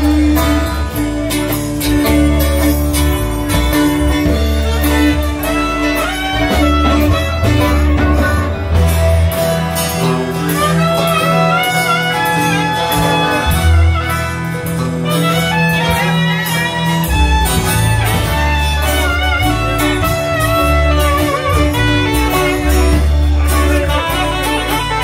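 Live band music: strummed guitars under a reed instrument playing a wavering melody line.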